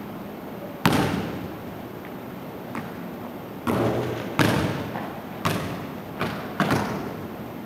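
Basketball thudding on a hardwood gym floor, each hit echoing through the hall: one bounce about a second in, a faint knock near three seconds, then a run of bounces from about three and a half seconds on that come closer and closer together as the ball settles.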